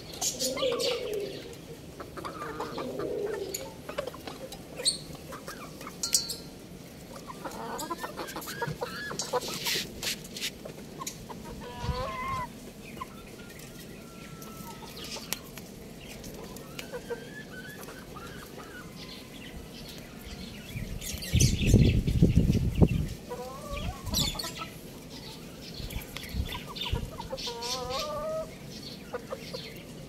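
Chickens clucking on and off, short calls scattered through, with sharp ticks here and there. About two-thirds of the way through comes a loud, low rushing burst lasting about a second and a half.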